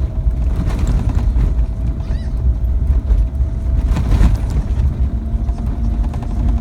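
Vehicle driving on a gravel road, heard from inside the cabin: a heavy low road-and-engine rumble with scattered knocks and rattles from the gravel, and a steady thin whine over it.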